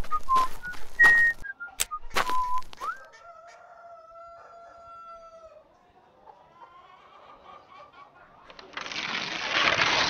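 A person whistling: short gliding notes among a few sharp clicks, then one long held note. Near the end comes a loud hissing rush, like a blast of breath or a whoosh, lasting about a second and a half.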